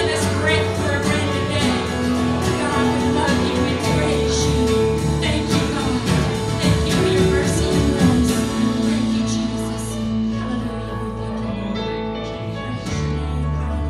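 A live church worship band playing a song on drum kit, electric and acoustic guitars and keyboard. The drums and cymbals ease off about ten seconds in.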